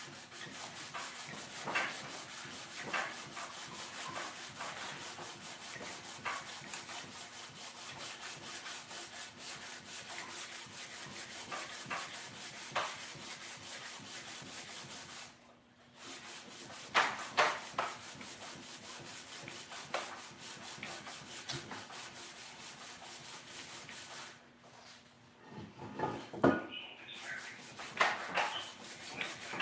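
Steady sanding and scuffing of a GM 5.3 LS cylinder head's surface with an abrasive. It stops briefly about halfway through and again near the end, with a few sharp knocks.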